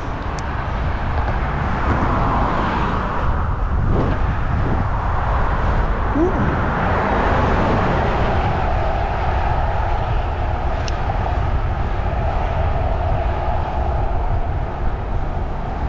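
Wind rushing over the microphone of a camera riding along on a bicycle, a steady loud rush with a deep rumble, mixed with the sound of car traffic on the road alongside, which swells a couple of times as vehicles pass.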